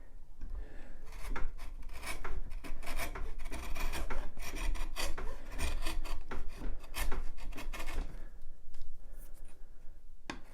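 A sharp bench chisel paring pallet wood by hand across the grain, a run of short scraping cuts, quieter near the end.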